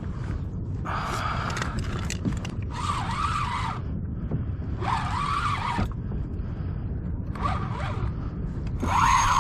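Conventional fishing reel whirring in five short bursts, about a second each, as line is worked against a hooked fish, over a steady low rumble of wind and water.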